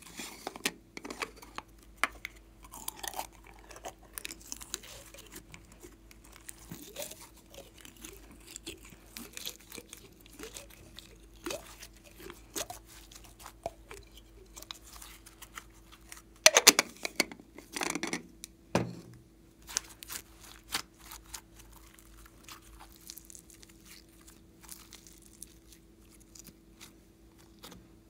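Sticky glossy slime being squeezed and pulled by hand out of a plastic container, making irregular wet crackles, pops and tearing sounds, with a louder run of crackling a little past halfway.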